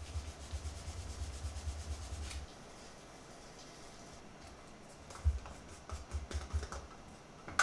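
Canvas cloth rubbed rapidly back and forth over the flesh side of a dyed leather disc, burnishing it after a coat of burnishing gum; the rubbing stops about two and a half seconds in. Later come a few light knocks and clicks of plastic jars being handled on a stone board.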